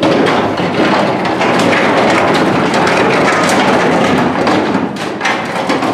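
A flock of sheep clattering up the slatted metal ramp and into a livestock trailer: a loud, dense, continuous rattle of many hooves on metal.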